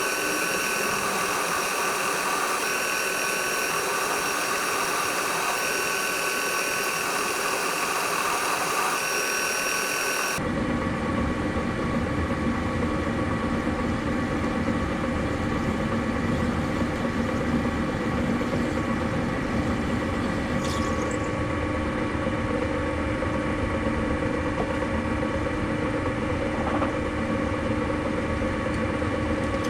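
Small electric tool-grinding machine motor running steadily. About ten seconds in, the sound cuts abruptly from a higher whine with several steady tones to a lower, rumblier machine sound.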